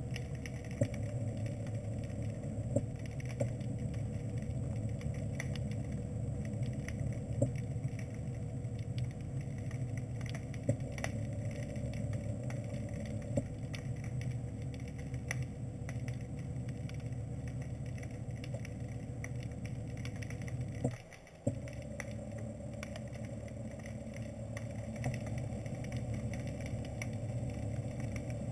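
Small ROV's electric thruster motors humming steadily, heard underwater, with scattered sharp clicks; the hum drops out for about half a second around twenty-one seconds in.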